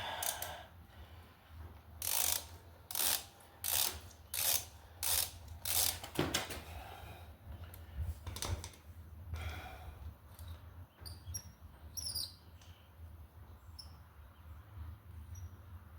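Ratchet wrench clicking in a run of about seven short strokes, a little under a second apart, as a brake caliper bolt is worked loose; fainter tool ticks follow.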